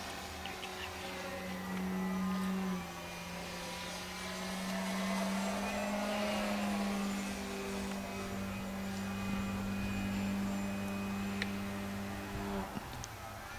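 Electric motor and propeller of a 65-inch U Can Do 3D RC plane droning in flight at steady throttle. The pitch drops a little about three seconds in, the drone swells again mid-way, and it cuts off abruptly near the end as the throttle is chopped.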